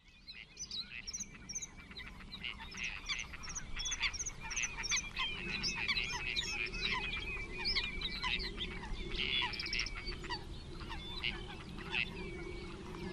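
Many birds calling at once, a busy chorus of short chirps and whistled notes, with a steady lower drone beneath. It fades in over the first couple of seconds.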